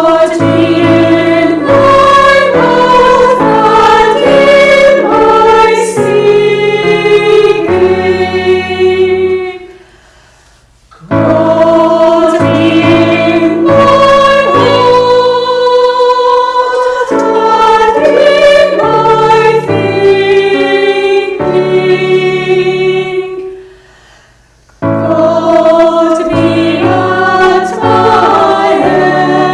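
Choir singing in three phrases separated by short pauses about ten and twenty-four seconds in.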